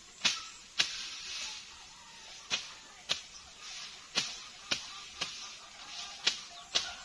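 A bolo knife slashing through tall cogon grass in about nine sharp swishing cuts, often in quick pairs, with the stems rustling between strokes as they are gathered and cut.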